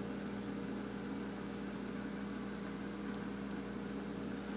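Steady low mechanical hum with a faint hiss: room tone, with no distinct event.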